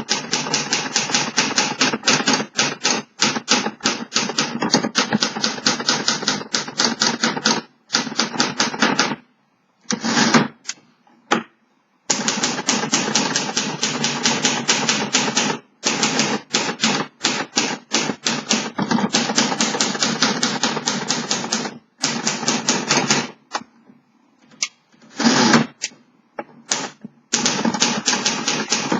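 1957 Remington Quiet-Riter manual typewriter being typed on: rapid runs of typebar strikes against the platen, a few per second, broken by short pauses.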